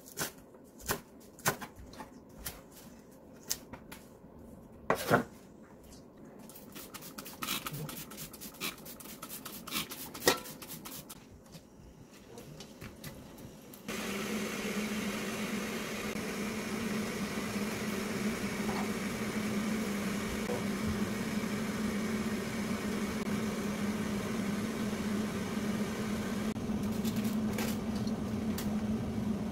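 A kitchen knife chops cabbage on a wooden cutting board: scattered knocks, then a fast run of chopping. About halfway through the sound cuts to a steady hum and hiss of an earthenware pot of stew cooking on an electric cooktop. Near the end there are a few light clicks as a wooden spoon stirs the stew.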